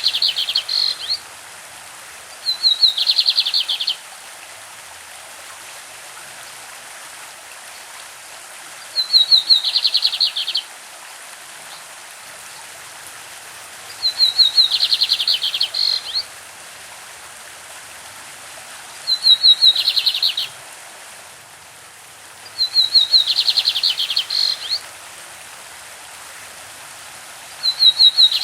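Lined seedeater (bigodinho) singing its classic song: about seven short phrases, each a quick run of high notes dropping into a fast buzzy trill, repeated every four to five seconds. A stream runs steadily underneath.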